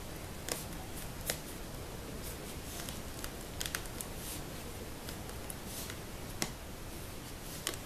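Hands pressing and handling an EVA-foam-covered cardboard box, giving a few scattered sharp clicks and taps over a steady background hiss.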